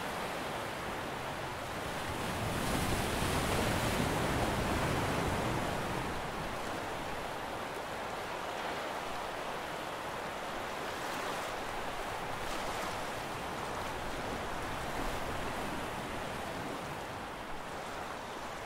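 Sea water rushing and splashing along the hull of a wooden-style ship under way, with wind on the microphone. The rush swells a little about three to five seconds in, then settles back.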